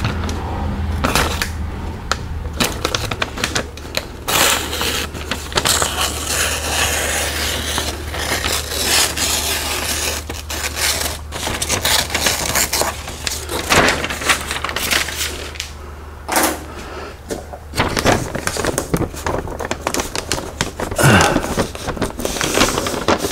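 Brown masking paper crinkling and rustling in irregular crackles as it is handled, folded and pressed against the car body. A low steady hum runs underneath and stops about three-quarters of the way through.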